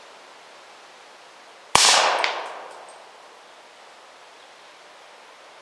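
A single shot from a 10.5-inch-barrel .300 Blackout pistol firing a subsonic round, about two seconds in, with a tail that dies away over about a second. A fainter sharp crack follows about half a second after the shot.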